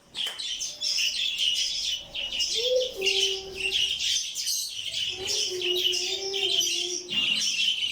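A flock of small pet parrots chirping and chattering continuously in high, rapid tweets. Twice, about two and a half and five seconds in, a lower, held tone sounds beneath the chatter for a second or two.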